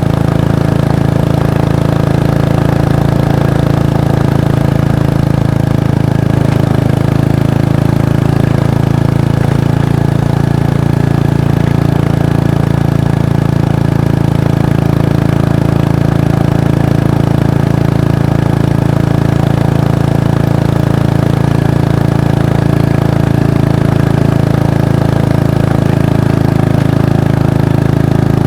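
Kawasaki Estrella's single-cylinder engine running through its exhaust at a steady, unchanging pitch, with no revving.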